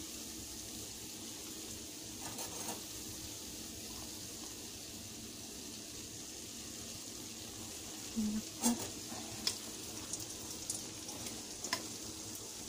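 Odading dough pieces deep-frying in oil in a stainless steel pan, with a steady sizzle. From about eight seconds in come a few sharp clicks and taps of metal tongs against the pan as the pieces are moved.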